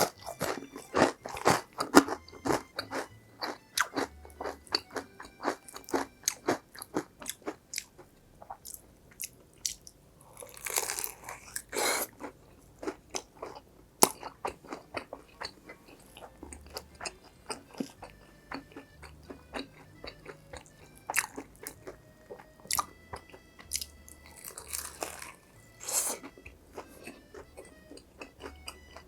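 Close-miked crunching and chewing of crispy fried food, with quick bites packed close together in the first several seconds, then slower, sparser chewing.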